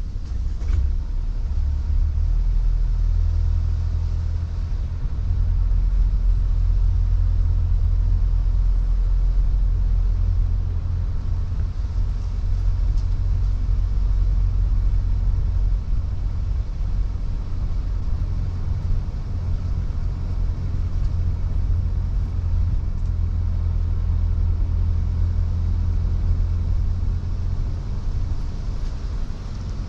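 Car driving along a country lane: a steady low rumble of engine and road noise.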